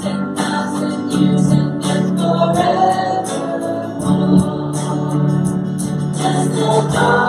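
A hymn sung by a group of voices with instrumental accompaniment and a steady beat.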